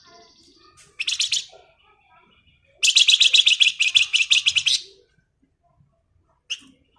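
A flamboyan songbird giving its rapid rattling 'ngebren' song: a short fast rattle about a second in, then a louder two-second run of quick buzzy pulses, and a single sharp note near the end.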